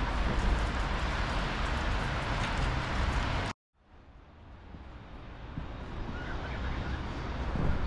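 Outdoor ambience: a steady rumble and hiss that cuts off abruptly about three and a half seconds in, then fades back in more quietly.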